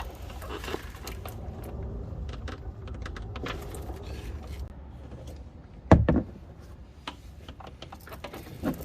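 Tools and parts being handled at the car: scattered clicks and light clatter, with one loud knock about six seconds in and a smaller one near the end.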